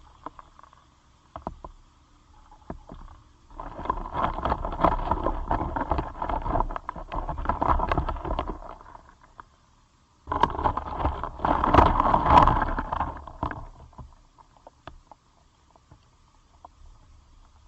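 Close-miked scratching and scraping from Caucasus beetles during mating, in two long bouts of dense crackling: the first starts about three and a half seconds in, the second about ten seconds in.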